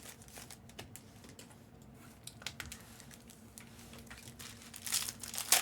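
Faint crinkling and light handling of foil card-pack wrappers, scattered small clicks and rustles growing louder about five seconds in, over a low steady hum.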